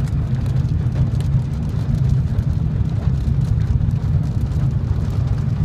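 Car driving on a wet road in the rain, heard from inside the cabin: a steady low road-and-engine rumble, with faint ticking of raindrops on the glass.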